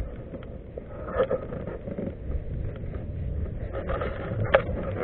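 Low, steady rumbling noise with a few light knocks and scrapes on a plastic fishing kayak, and one sharp click about four and a half seconds in.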